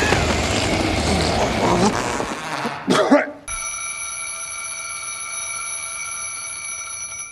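Film soundtrack with a voice over it for about three seconds, then a mechanical alarm clock's bell ringing steadily without a break.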